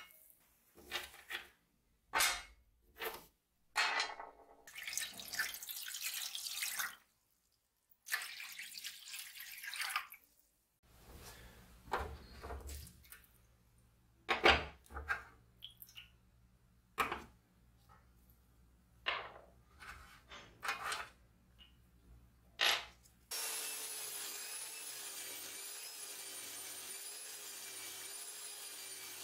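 Rusty steel pruning-shear parts clink and knock against an enamel tray as they are set down, with two spells of liquid being poured into the tray early on. About two-thirds in a motor-driven wire wheel starts up with a steady whine and runs on.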